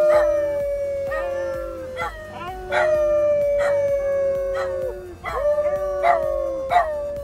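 A dog howling: three long, drawn-out howls in a row, each sliding slightly down in pitch.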